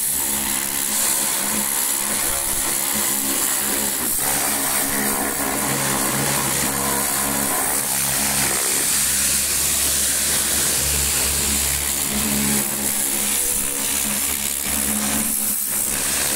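Pressure washer running steadily, its motor droning under the hiss of a high-pressure water jet blasting against the rear wheel and tyre of an Ursus C-330 tractor.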